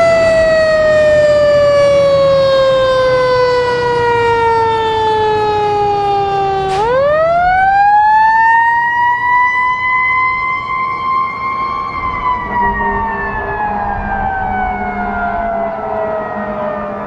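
Fire engine siren winding slowly down in pitch, then spun quickly back up about seven seconds in. It holds high for a few seconds, then winds down again as the truck drives away.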